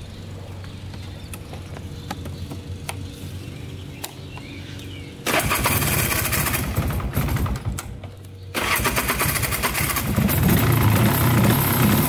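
Polaris 400 4x4 ATV's two-stroke engine idling steadily, then revved hard with the throttle about five seconds in. It drops back briefly near eight seconds, then is revved again and held at high revs.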